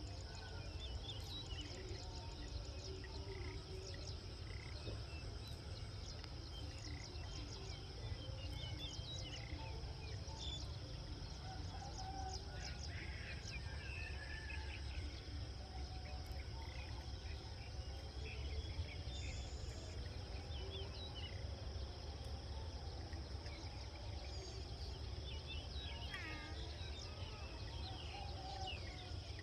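Countryside ambience: a steady high insect trill throughout, with many short bird chirps and calls scattered over it and a low rumble underneath.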